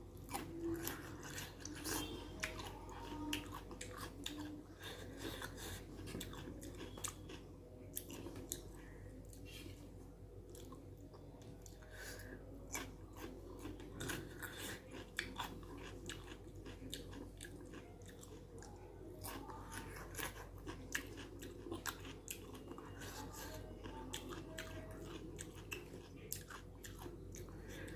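Close-up chewing and mouth sounds of a person eating rajma curry and rice, with many small wet clicks throughout.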